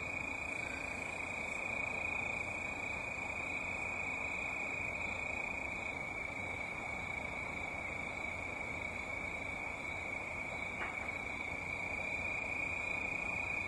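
Crickets trilling: one steady, unbroken high-pitched note over a faint hiss.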